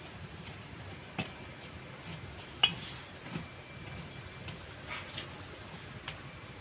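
A thin metal rod raking and poking through charcoal embers, giving about five sharp clicks as it knocks against the coals, the loudest about two and a half seconds in.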